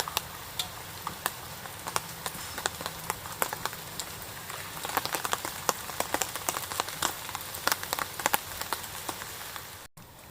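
Rain falling, with many separate drops ticking sharply on a nearby surface, coming thicker for a few seconds in the middle.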